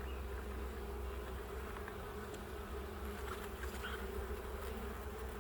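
Honeybees buzzing steadily around an open hive.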